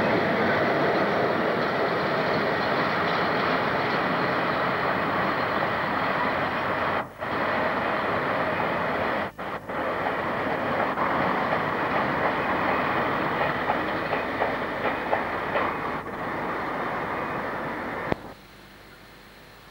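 Loaded coal hopper wagons of a freight train rolling past on curved track: a steady rumble with regular clicks of wheels over rail joints. The sound cuts off suddenly about 18 seconds in, leaving faint tape hiss.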